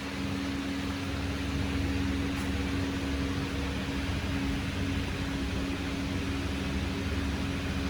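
Steady mechanical hum with a constant low tone over an even hiss.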